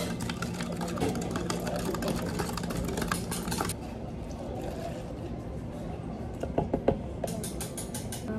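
Metal bar spoon clinking rapidly against a glass measuring pitcher as tea is stirred for a milk tea, over a steady low hum; the clinking and hum stop a little over a third of the way in, a few knocks follow, and a fast run of light ticks comes near the end.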